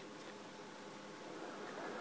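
Quiet steady hiss with faint handling of small metal construction-toy parts, a soft rustle near the end.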